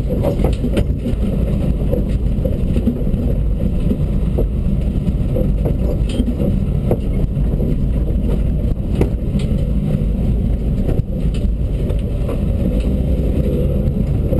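Dacia Duster rally car driving on a rough unpaved track, heard from inside the cabin. A steady, loud engine and road rumble is broken throughout by short knocks and rattles from the bumps.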